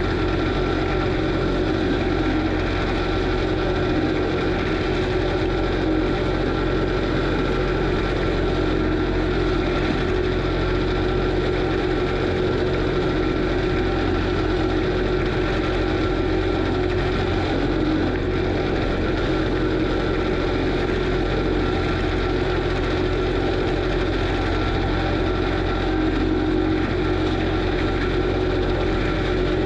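Kubota SVL95 track loader's diesel engine running steadily under the FAE forestry mulcher, a constant low drone with a steady high whine over it.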